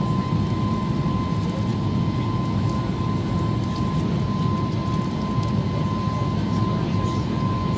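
Boeing 737 MAX 8's CFM LEAP-1B jet engines running steadily: a constant low rumble with a thin, steady high tone over it.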